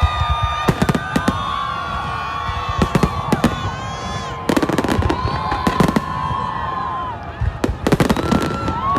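New Year fireworks display: clusters of sharp bangs and crackling bursts, about four volleys, over the voices of a large crowd.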